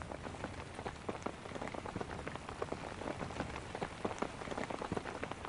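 Light rain falling on leaves and the forest floor: a dense, irregular scatter of small drops over a steady hiss.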